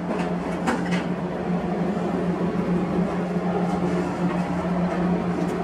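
A steady background hum with a constant low drone and hiss, with two short scratches in the first second.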